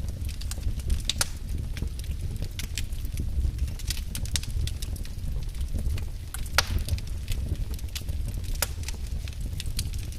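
Wood fire crackling in a fireplace: irregular sharp pops and snaps over a steady low rumble, with one louder pop about two-thirds of the way through.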